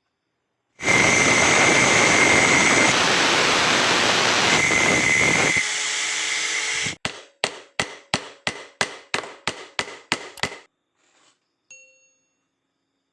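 J.LD Tool hand angle grinder running, a steady high whine over harsh rushing noise; it drops in level about five seconds in and cuts off suddenly a second later. Then come about ten sharp knocks, roughly three a second, each ringing briefly, and a faint ding near the end.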